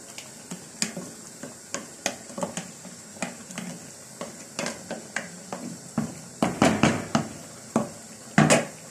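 Chopped tomatoes cooking down in a metal pot on the stove: irregular small pops and clicks, two or three a second, with a few louder clanks against the pot about six seconds in and again near the end.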